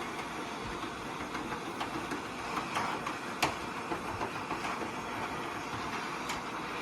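Gas torch flame hissing steadily while it heats a soldered copper pipe joint to melt the old solder. A few sharp metal clicks come around the middle, from pliers working the fitting.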